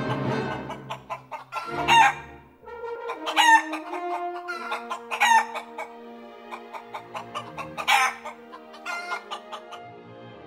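A chicken calling: four loud calls about two seconds apart, with softer calls between them. Orchestral music fades down in the first second and goes on quietly underneath in held notes.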